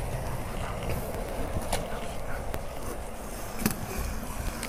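Skateboard wheels rolling over rough concrete with a steady low rumble, broken by three sharp clacks of the board, the loudest near the end.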